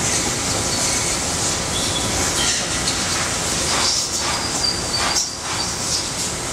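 Steady industrial machinery noise with a hiss, and a faint high whine about four to five seconds in.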